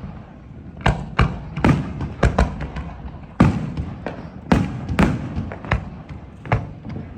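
Aerial fireworks bursting in quick succession: a dozen or so sharp booms at uneven intervals, each trailing off briefly.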